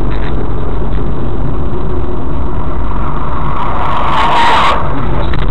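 Vehicle engine and road noise picked up by a dashcam: a steady low rumble. About four seconds in, a rushing noise swells up and cuts off sharply.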